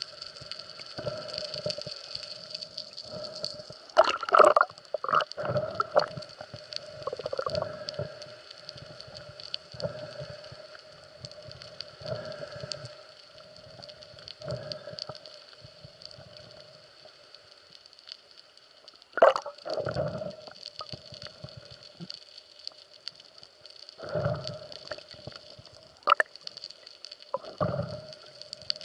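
Underwater sound picked up through a camera's waterproof housing: a steady high whine, broken by irregular muffled knocks, bumps and water gurgles. The loudest come about 4 and 19 seconds in.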